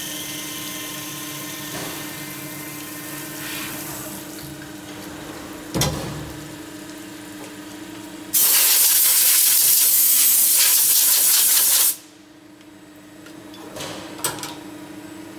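CNC lathe running with a steady hum while machining an aluminium disc, with a knock about six seconds in. Then a loud, even hiss for about three and a half seconds that cuts off suddenly, and a few clicks near the end as the part is taken from the collet.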